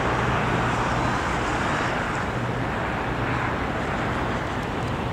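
Steady jet-engine noise of airliners taxiing at idle on the airport, an even rushing sound with a low steady hum underneath.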